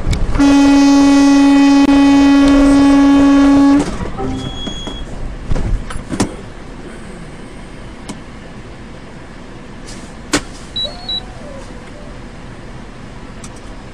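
A vehicle horn sounding one long steady blast of about three and a half seconds as a car cuts in ahead, followed by engine and road noise with a few sharp clicks and a brief high beep.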